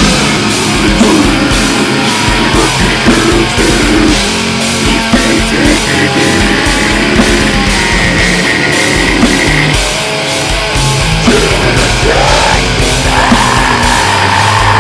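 Heavy metal song playing loudly: a dense band sound over a steady drum beat. Near the end a long held note rises and then falls.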